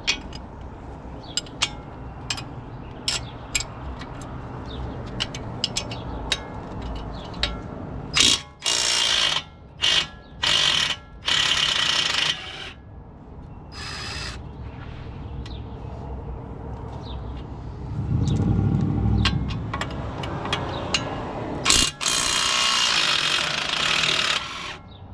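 Compact 12-volt cordless impact wrench hammering on an 18 mm bolt in several short bursts, then one longer run near the end, working the bolt loose. Scattered metallic clicks of the socket and tool being handled come before the bursts.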